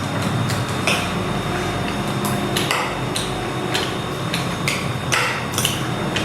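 Spoons clinking and scraping against plates while chatpate is eaten: about ten sharp, irregular clinks over steady background noise.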